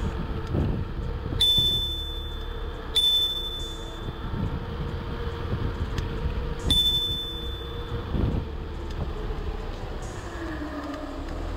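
Handlebar bicycle bell rung three times, about a second and a half in, at about three seconds and again near seven seconds, each a single bright ding that rings on briefly. It is a warning to walkers on the path ahead. Underneath is a steady low rush of wind and tyres from riding.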